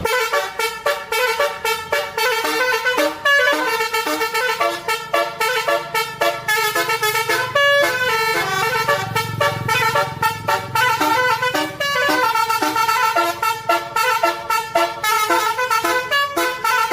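Bus telolet horn, a set of multi-tone air horns, tooting a fast tune of short notes that changes pitch again and again without a break. A low engine rumble swells under it around the middle.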